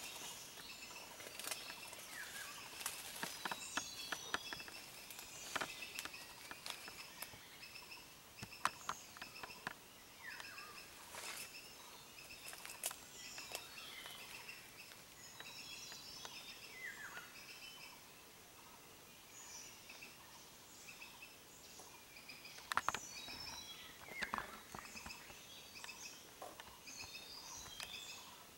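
Forest ambience with many small birds chirping in short repeated high notes and a few brief falling calls, with scattered sharp clicks and rustles.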